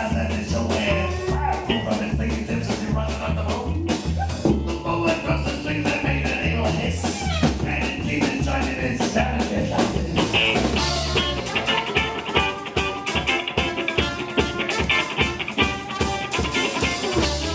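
Live band playing an up-tempo swing-rock number with fiddle, electric guitar, bass and drums, and a man singing at the mic in the first part. About eleven seconds in the bass line drops out and a fast fiddle and guitar break takes over.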